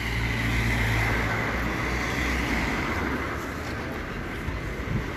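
City street traffic: a car engine and tyre noise passing close by, loudest about a second in, then fading into the general hum of traffic.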